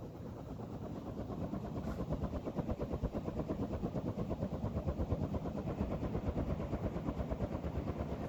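SMC DC52 two-blade ceiling fan running, its blades making a rhythmic whoosh of about five or six pulses a second that grows louder over the first couple of seconds and then holds steady.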